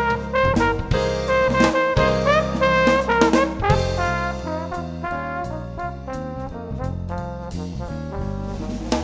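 Background music: a jazzy tune led by brass instruments over a bass line and drum beat.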